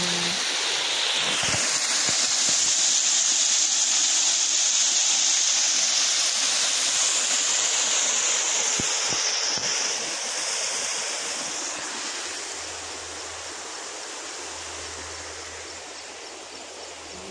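Small river flowing, a steady rush of water over stones, louder for the first half and then easing off.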